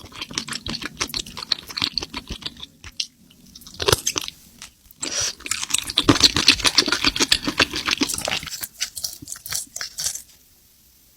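Mouth sounds of someone chewing seafood, crunchy and wet, with dense clicks and crackles. They pause briefly about three seconds in, get louder from about five to eight seconds, and stop about ten seconds in.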